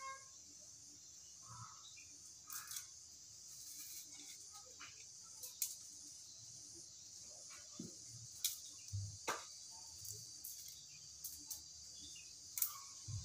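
A steady high chirring of insects in the background, with scattered sharp clicks and knocks from a knife and hands working ingredients on a work surface, the loudest knock near the end.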